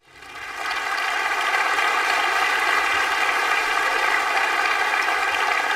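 Audience applauding steadily, fading in after a moment of silence.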